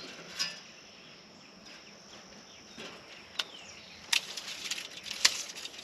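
A few sharp clicks and taps from parts of a metal roof rack basket being handled, the loudest about four and five seconds in. Under them runs a faint, steady outdoor background of insects.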